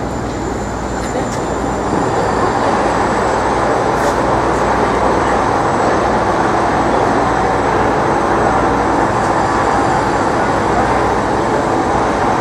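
Steady, loud rumbling noise of city traffic and machinery, getting louder about two seconds in.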